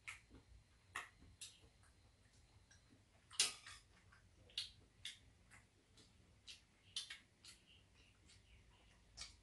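Quiet, irregular clicks and taps of chopsticks and eating at a shared tray of pancakes, with one sharper click about three and a half seconds in.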